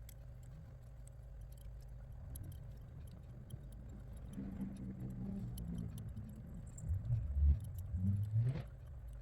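Hands handling RC crawler wheel parts: faint small clicks and light knocks of plastic and metal pieces, with a few louder low bumps about seven to eight and a half seconds in.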